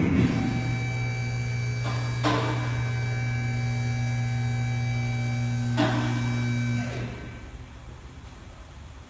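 An electric motor hums steadily for about seven seconds, starting abruptly, with two brief clunks partway through, then winds down and stops.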